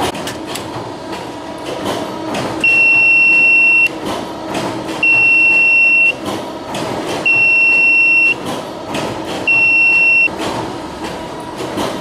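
Control-panel buzzer of an automatic buckle-making machine sounding four high, steady beeps, each about a second long and about a second apart, over the continuous running and scattered ticking of workshop machinery.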